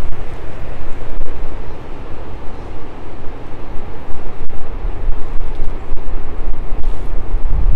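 Wind buffeting the microphone in uneven gusts, over the steady wash of ocean surf.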